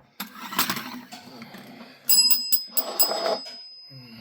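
A cat ringing a small bell, about six quick rings in a row starting about two seconds in, eagerly asking for its steak supper. A brief scuffing knock comes about half a second in.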